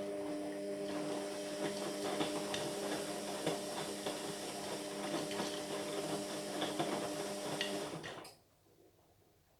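Indesit MyTime washing machine running mid-cycle: a steady motor hum with a crackle of water over it for about eight seconds, then stopping suddenly.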